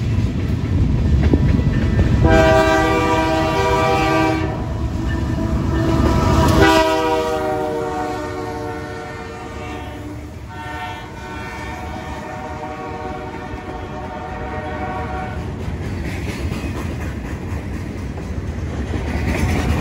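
Freight train locomotive's multi-chime air horn sounding three blasts, the last the longest, the chord dropping in pitch as the locomotive passes close by. Under it the diesel locomotives rumble past, then the freight cars roll by with a steady rolling clatter over the rails.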